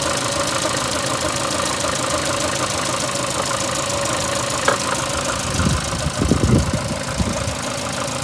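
VAZ 2115's 8-valve four-cylinder petrol engine idling with a knocking, rubbing noise whose cause the owner cannot find; it appeared after the head gasket blew on the first cylinder and the antifreeze and oil were changed, and the owner wonders whether the valves are worn. A sharp click sounds about halfway through, and a few low thumps follow near the end.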